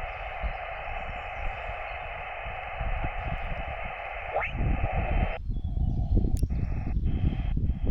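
Shortwave transceiver's receiver hiss from its speaker while the dial is turned across the band. About four and a half seconds in, a carrier's whistle slides quickly upward in pitch. After that, the hiss cuts out and comes back several times, with sharp clicks, as the operator looks for a clear frequency.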